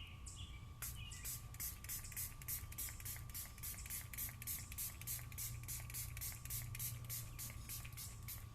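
Spray bottle of headlight surface activator pumped rapidly and repeatedly, short hissing sprays at about four or five a second, starting about a second in.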